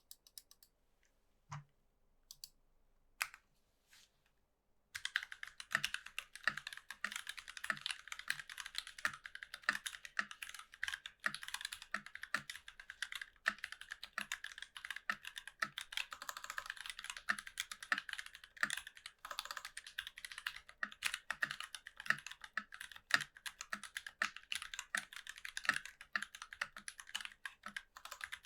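Typing on a NovelKeys NK65 mechanical keyboard with an aluminium plate, lubed C3 Kiwi tactile switches and GMK keycaps. A few single keypresses come first, then fast continuous typing from about five seconds in.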